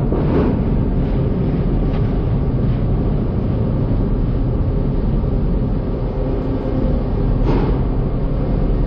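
Toyota Tacoma pickup heard from inside the cab at low speed, a steady low rumble of engine and road noise as it rolls onto a ferry's car deck, with a brief knock near the end.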